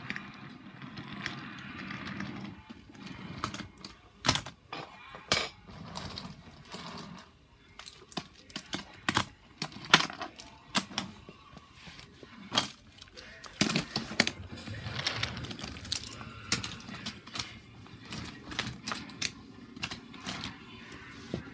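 Wooden toy subway cars rolling on wooden toy track, giving irregular sharp clicks and clacks as the wheels cross the track joints and the cars knock together.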